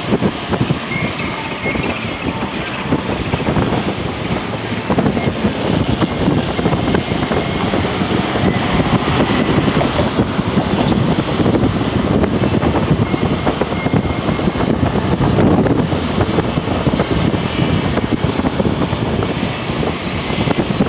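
Steady rushing wind and road noise from a moving car.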